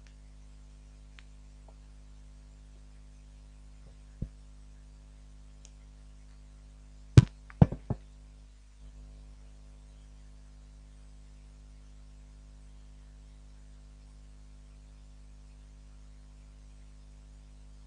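Steady low electrical hum, broken by one sharp knock about four seconds in and a quick cluster of four louder knocks and thumps a few seconds later, from things being handled at a lectern.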